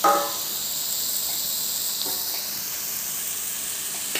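Steady frying hiss from an iron kadai of noodles, onion and capsicum with freshly added paneer cubes. A brief loud ringing knock sounds right at the start.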